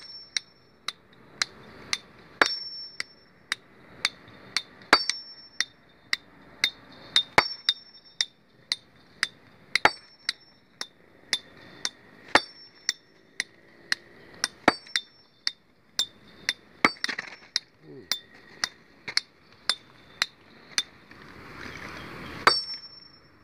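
Hammer striking a stone boulder over and over in a steady rhythm of about two blows a second, each a sharp clink with a brief metallic ring.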